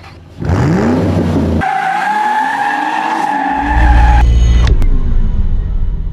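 Car engine revving up with a rising pitch, then tyres squealing in a long steady screech over a deep engine rumble. A sharp crack and a falling sweep follow, and the sound fades out.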